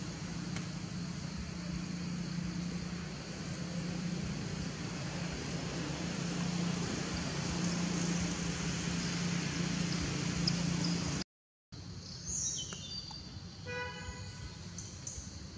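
A steady low motor drone with a constant hum. It cuts off abruptly after about eleven seconds, and after a brief silence a quieter background follows with a short pitched call.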